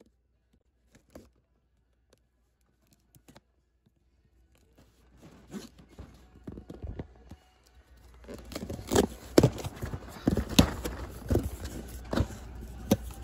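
Cardboard shipping cases of carded toy cars being shifted and opened by hand: rustling and scraping with many sharp knocks and clacks. The first few seconds are near silent, and the handling grows busier and louder from about the middle on.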